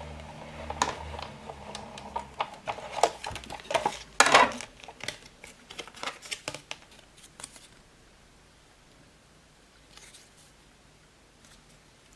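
Sizzix Big Shot die-cutting machine being hand-cranked, its rollers drawing the plate sandwich through with a low steady hum for the first two seconds or so. Then clear acrylic cutting plates and a plastic embossing folder click and clatter as they are taken out and handled, loudest about four seconds in.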